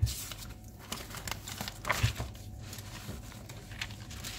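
Handling noise from a paper notebook on a wooden desk: paper rustling with scattered small knocks and taps, the sharpest right at the start and about two seconds in.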